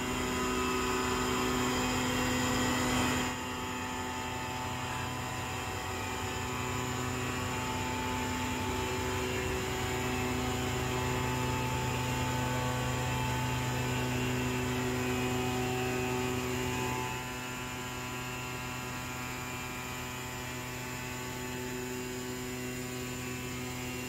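Steady hum of dairy plant machinery and pumps as milk is unloaded from a stainless-steel tanker trailer, a low drone with several steady tones over it. It steps down a little in level about three seconds in and again past the middle.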